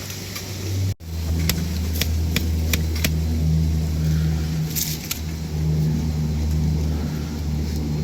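A motor vehicle's engine running steadily, a low drone, with a run of about six light clicks between one and a half and three seconds in. The sound cuts off abruptly for an instant about a second in.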